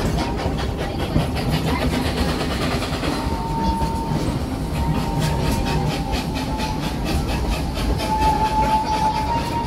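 Narrow-gauge park train's open passenger coaches rolling around a curve: a steady low rumble with rapid wheel clicking on the rails. From about three seconds in, a thin high wheel squeal joins it, steady but wavering slightly in pitch.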